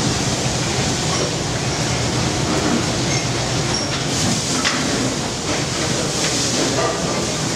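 Steady noise of a commercial kitchen range and its extraction, with a few faint clinks of a metal spoon against the pan and plate.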